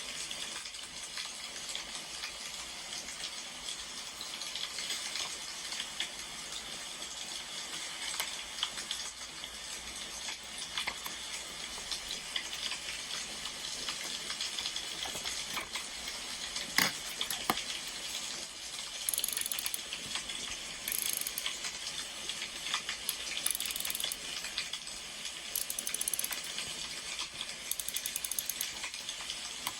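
Steady crackle and hiss of a burning wood fire, dotted with many small sharp ticks and a louder click about halfway through.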